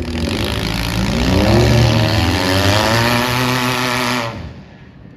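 A demolition derby car's engine revving hard: the pitch climbs about a second in, holds high, then cuts back around four seconds, leaving quieter background.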